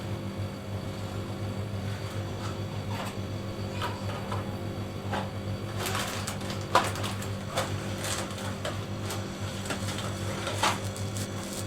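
A steady low machine hum with irregular clicks and light knocks over it; the sharpest click comes about seven seconds in.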